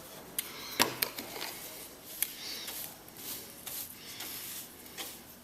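Irregular light clicks and scrapes of metal drilling swarf being gathered off a steel tank top with a magnet, the sharpest click about a second in.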